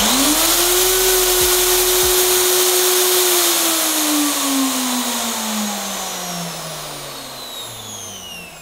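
Makita RP2300FC plunge router's motor at maximum speed setting: it finishes a smooth soft-start spin-up in the first half second and runs steadily. About three seconds in it is switched off and winds down slowly, its whine falling in pitch and fading, because this model has no electric motor brake.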